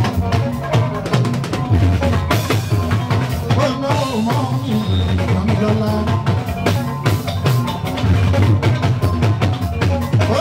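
Band music driven by a drum kit and bass, with a steady dance beat of regular drum strikes.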